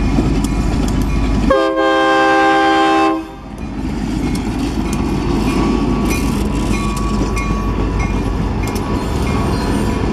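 EMD SD40-2 diesel locomotive rumbling past close by, sounding one horn blast of several notes at once, about two seconds long, a second and a half in. After the horn, wheels click over the rail joints as the locomotive and the first freight cars roll past.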